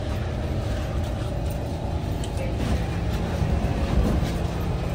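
Steady low rumble and hum inside a Kawasaki C151 train car as it stops at the platform and its doors open, with a few short clicks and knocks about halfway through.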